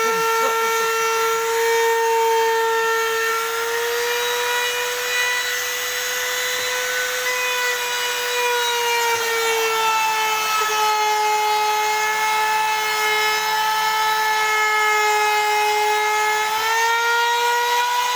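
A small high-speed power tool whining steadily, its pitch sagging slightly about nine seconds in and climbing back near the end.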